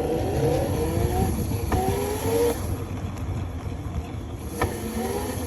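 Electric drive of a Razor RSF650 mini moto under way: the motor whine climbs in pitch twice as it accelerates, then settles and picks up again near the end, over a steady rumble from the tyres rolling on the ground. There are a couple of sharp clicks.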